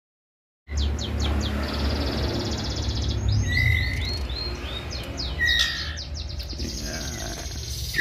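Young white-rumped shama (murai batu) chicks chirping, many short high calls in quick runs with a few brief whistled notes, over a steady low hum. The sound starts abruptly about a second in.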